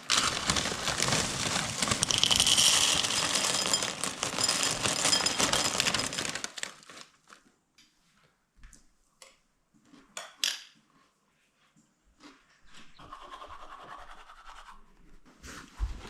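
Camping gear being packed up: loud scratchy rustling and rubbing for about six seconds, then a few scattered clicks and taps and a softer stretch of rustling near the end.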